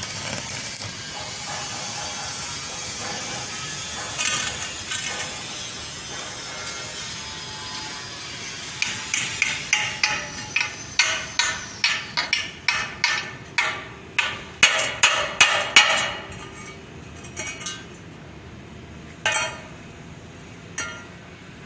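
Stick-welding arc crackling and hissing steadily as it gouges a hole through iron, stopping about eight seconds in. Then comes a run of sharp ringing metal strikes, about two a second, and two more single strikes near the end.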